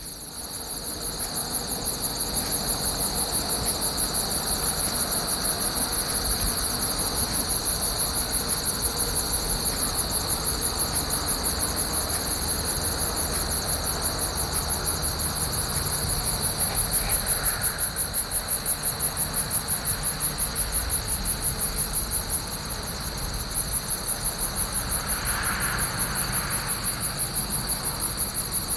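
Crickets chirping loudly and continuously in a chorus, two trills at different pitches, a high one over a lower one, pulsing fast and evenly.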